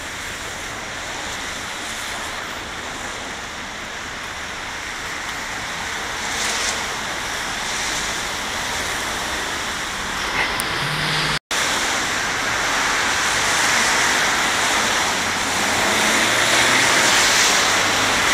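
Steady hiss of traffic on a wet street, car tyres swishing over rain-soaked asphalt, growing louder in the last few seconds. The sound cuts out for an instant about eleven seconds in.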